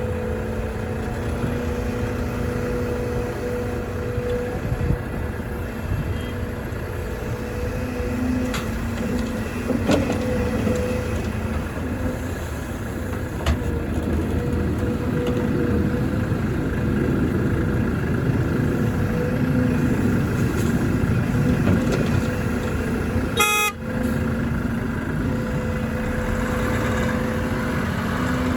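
Volvo EC300E excavator's diesel engine running steadily as it digs and loads soil, with a few sharp knocks. A short horn toot sounds about three-quarters of the way through.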